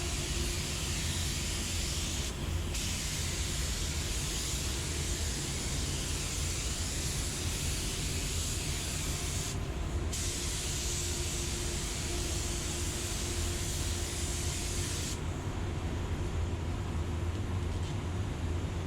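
Automotive refinishing spray hissing steadily while a spot repair is sprayed, with two brief pauses between passes, then shutting off about fifteen seconds in. A steady low hum runs underneath.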